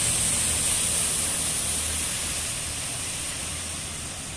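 Steady rain falling, a dense hiss, with traffic on the wet street underneath; the hiss slowly eases over the last couple of seconds.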